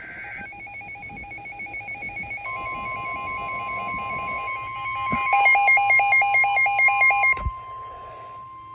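Emergency alert tones for a severe thunderstorm warning: rapid electronic beeping that flips between a low and a high pitch, joined about two and a half seconds in by a long steady warning alarm tone. The beeping grows louder and harsher about five seconds in, then cuts off suddenly near the end while the steady tone holds.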